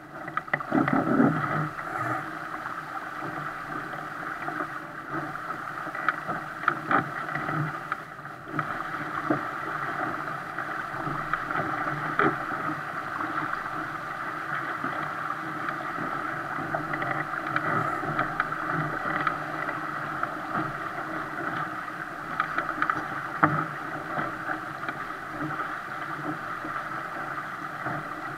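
Water rushing along the hull of a 470 racing dinghy sailing fast through chop, a steady wash with occasional sharper slaps of waves against the bow.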